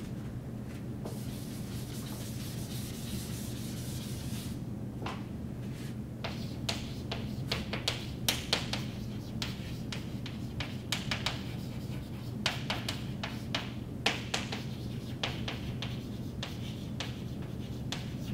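Chalkboard being wiped with an eraser for a few seconds, a steady dry rubbing, then chalk writing on a blackboard: a long run of short scratches and taps as a sentence is written out.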